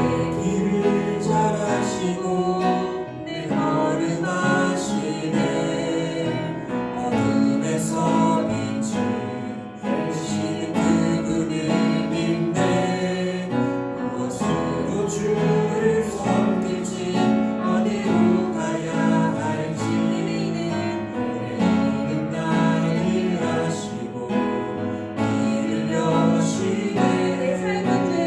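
Church worship music: a gospel praise song with singing over keyboard accompaniment and a steady beat.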